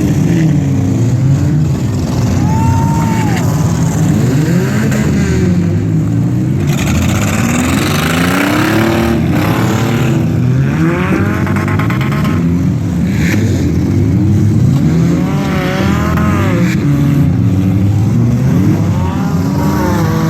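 Several demolition derby car engines revving and falling back, their pitches rising and falling over one another, with a few sudden knocks in the mix.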